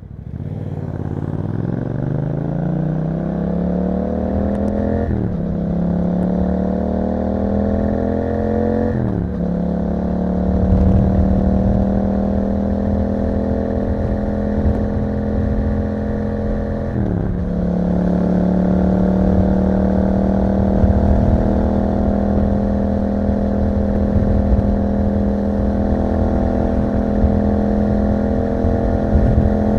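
Yamaha MT-07's 689 cc parallel-twin engine through an Akrapovic exhaust, pulling away from low revs and accelerating with two quick upshifts in the first nine seconds. It then holds steady revs while cruising, with another upshift about halfway through and one more near the end.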